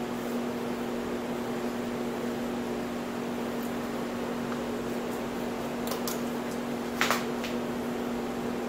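Steady low hum with a few light clicks about six seconds in and a louder sharp click about seven seconds in, as the gate arms of a battery-operated toy railroad crossing signal start to rise.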